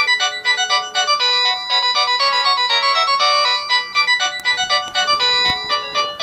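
LG mobile phone ringtone playing: a synthesized melody of quick, bright notes.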